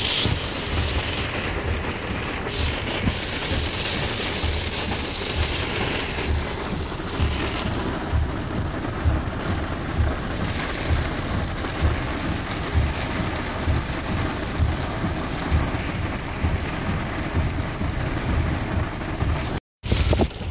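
Heavy rain pouring down on a vehicle, heard from inside the cab: a dense, steady hiss with frequent irregular low thumps.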